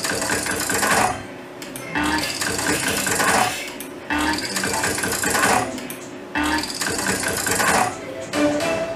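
Merkur 'Russian Queen' slot machine playing four spins in a row, about one every two seconds. Each spin is a rushing electronic reel-spin sound, and short beeping tones follow as the reels stop.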